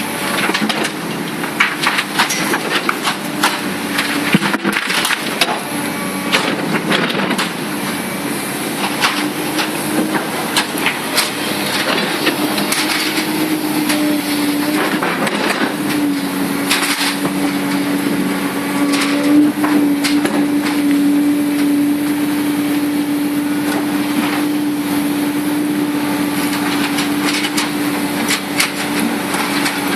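Komatsu PC300-8 hydraulic excavator working: its engine and hydraulics run with a steady hum that grows stronger partway through, under frequent knocks, clanks and crunching.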